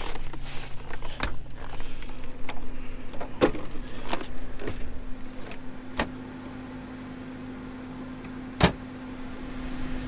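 Scattered knocks and clicks, the loudest near the end. A small electric motor starts humming steadily about three and a half seconds in.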